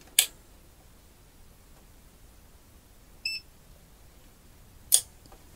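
Buttons on an Owon CM2100B clamp meter being pressed: a sharp click just after the start and another near the end. About three seconds in, the meter gives a short high beep.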